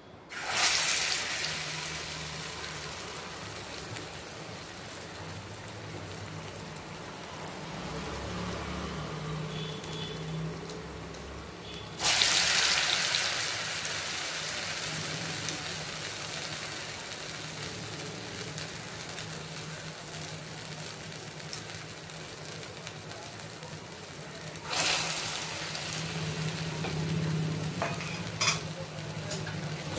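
Urad dal vada batter frying in hot oil in an iron kadai: a steady bubbling sizzle that flares up suddenly three times, once as each fresh vada goes into the oil, then settles back each time.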